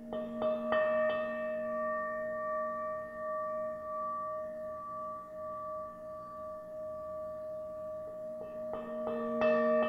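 Small handheld singing bowl struck with a mallet: a quick run of about four taps, then a long, steady ring of several overlapping tones. Near the end a second flurry of taps sets it ringing again and adds a new tone.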